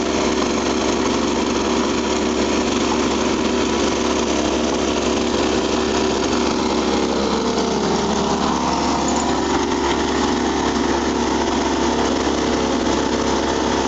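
Small engine of a homemade volcanic-ash vacuum running steadily, with its outlet left open and sucking through a hose. The engine note dips slightly and recovers about two-thirds of the way through.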